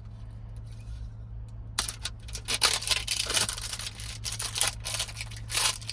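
A squishy toy's package being handled and opened by hand, rustling and crinkling. A quick run of crackles starts about two seconds in over a low steady hum.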